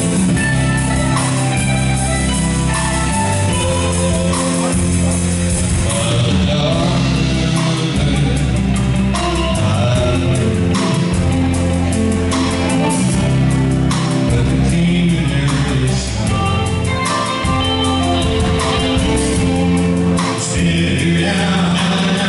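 Live country band playing, with electric guitars, bass guitar and drum kit under a sung vocal.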